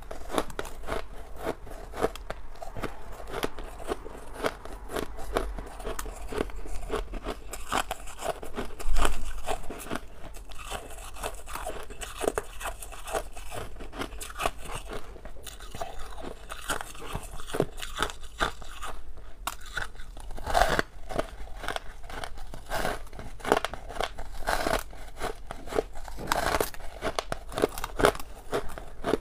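Compacted white freezer frost crunching as it is bitten and chewed close to the microphone: a dense, continuous run of crisp crackling crunches, with one louder knock about nine seconds in.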